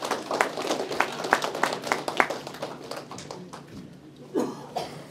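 A small group of people clapping after an introduction, the claps dying away about three seconds in. A brief voice sound comes near the end.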